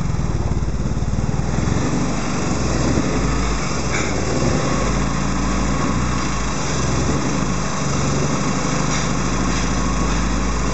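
Race-prepared Ford 1172 sidevalve four-cylinder engine running with its throttle worked by hand at the carburettor, its low note shifting unevenly; the engine has just been brought back to life after being unstartable.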